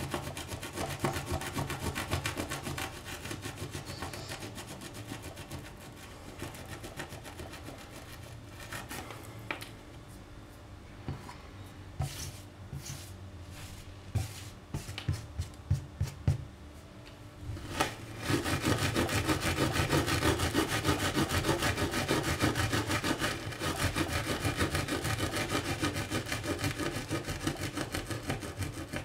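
Scouring pad scrubbing melted plastic off a glass-ceramic hob in quick back-and-forth strokes. The scrubbing fades, a few sharp taps sound around the middle, and then louder, close scrubbing starts again about two-thirds of the way through.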